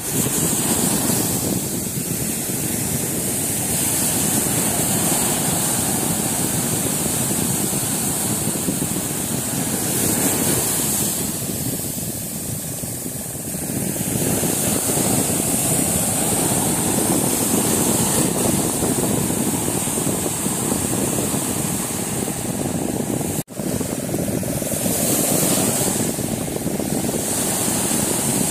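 Surf breaking and washing up a sandy beach: a steady noise of waves with no words, cutting out for an instant late on.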